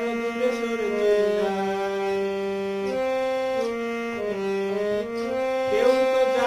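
Harmonium playing held notes, two or three at a time, that step to new pitches every half second to a second in a slow melody.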